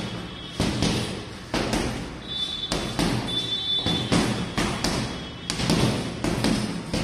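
Boxing-gloved punches landing on a heavy hanging punching bag: an irregular series of thuds, about one or two a second. A thin high squeak sounds twice around the middle.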